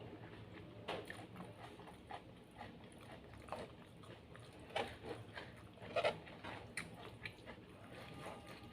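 Close-up mouth sounds of a person eating: wet chewing and lip smacks at an irregular pace, with a few sharper smacks about five and six seconds in.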